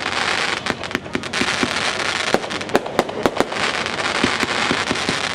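American Thunder fan cake firing: many sharp bangs and pops in quick succession over a continuous hiss.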